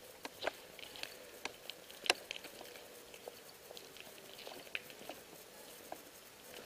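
Footsteps crunching over broken rubble and grit: irregular small crackles and clicks, one sharper crack about two seconds in.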